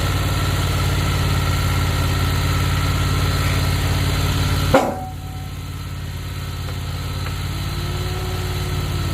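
Wood-Mizer portable band sawmill running steadily, its engine humming. About five seconds in there is a sharp clack, and the sound drops to a quieter engine idle.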